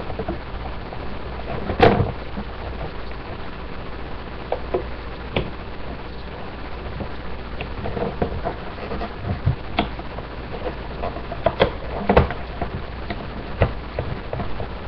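Scattered small clicks and taps of rubber loom bands being lifted off the pegs of a plastic loom and the loom shifting on a wooden table, with two sharper knocks about two seconds and about twelve seconds in, over a steady low hum.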